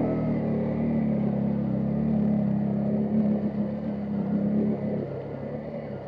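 ATV (quad bike) engine running steadily under load as the quad drives through water, easing off a little about five seconds in.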